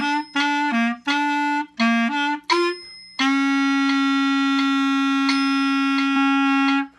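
Solo clarinet playing about five short detached notes, then holding the final E flat for about four seconds under a fermata, ending the piece.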